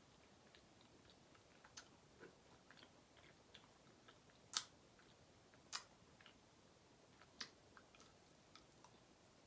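Faint chewing and wet mouth clicks of someone eating cheesecake, with three sharper clicks about a second apart past the middle.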